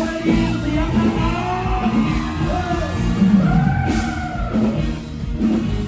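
Live band music with a singer's voice sliding through a wavering melody over steady bass notes.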